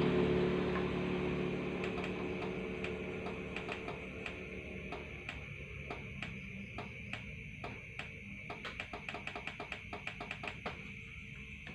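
Small irregular clicks and ticks from wires and their connectors being handled and twisted, coming thicker near the end. At the start a motor vehicle's engine fades away, and a steady high insect chirring sounds underneath.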